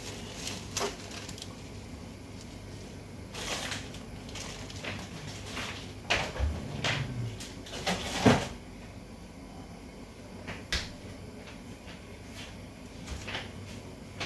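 Scattered knocks, clicks and clatter of kitchen work, such as cupboard doors and cookware being handled, with a cluster of knocks about six to eight seconds in and the loudest knock near the end of that cluster.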